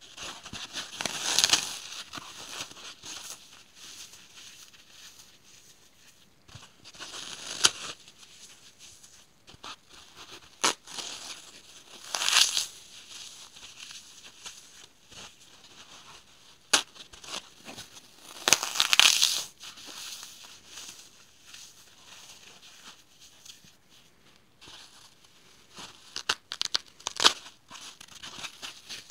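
Dry, slightly baked gridded floral foam being broken and crushed by gloved hands: gritty crunching and crackling in separate bursts every few seconds, with softer crumbling between.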